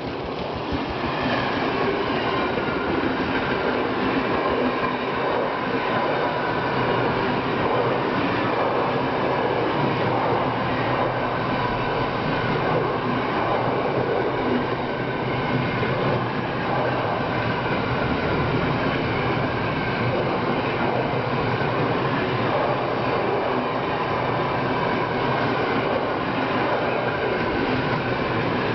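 Freight train wagons rolling past close by: a loud, steady rumble of wheels on the rails with a faint, steady high ringing tone above it.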